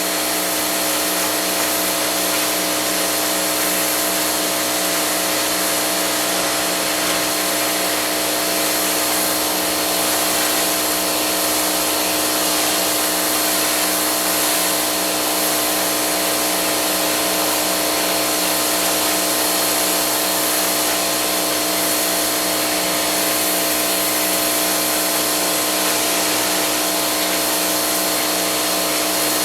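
A motor-driven yard machine running steadily at one speed: a constant drone with a strong hiss, no revving or breaks.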